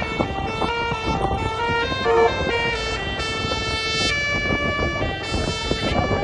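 Telolet multi-tone air horn on a heavy tronton truck playing a tune: a run of held, chord-like horn notes that change pitch every half second to a second, over the low rumble of the truck.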